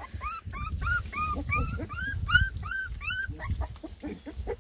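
Beagle puppy whining over and over, short high cries that rise and fall, about three a second, growing fainter and shorter near the end: an upset, fussing puppy. Underneath, a low rustling and bumping of puppies moving in wood-shaving bedding.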